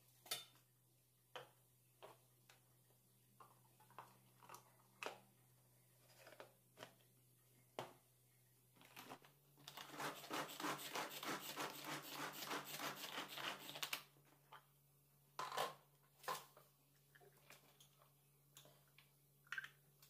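Hand-held pull-string vegetable chopper chopping onions: a fast, even rattle of about five strokes a second for roughly four seconds midway, as the cord is pulled again and again. Before and after it come scattered clicks and knocks of the plastic lid and bowl being handled.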